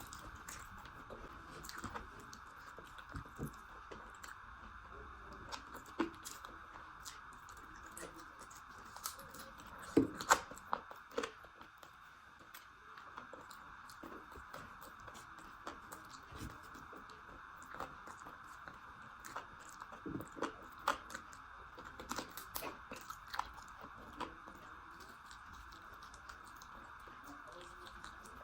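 Close-miked chewing and eating mouth sounds, with scattered short wet smacks and clicks. The loudest cluster comes about ten seconds in, over a faint steady background hum.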